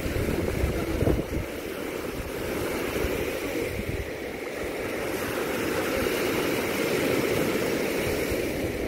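Rough Lake Michigan surf breaking steadily on the shore, with wind buffeting the microphone in low gusty rumbles; the surf swells a little in the second half.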